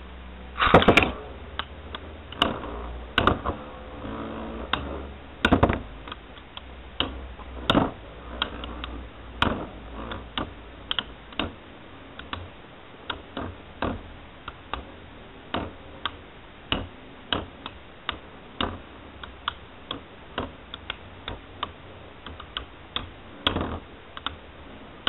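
Beyblade tops, one a Duo Cancer 230TB, spinning in a plastic stadium and clashing against each other and the stadium wall: a run of sharp, irregular clicks and knocks, with a loud clatter about a second in.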